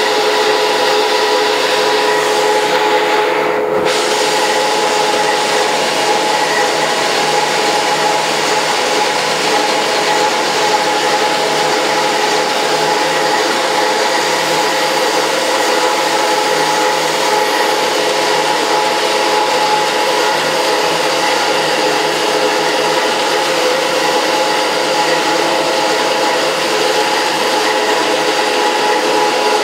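Beeswax foundation machine running steadily: a constant machine hum with several steady tones over a rushing noise.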